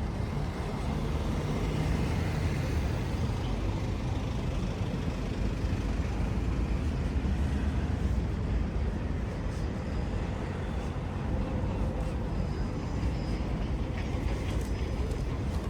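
Road traffic on a city street: a steady low rumble of passing vehicle engines and tyres.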